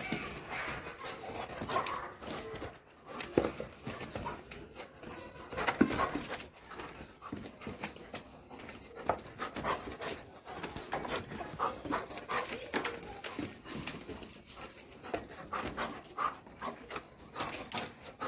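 A Doberman pinscher panting and giving small whines close to the microphone while being petted, mixed with scattered clicks and rustles of handling.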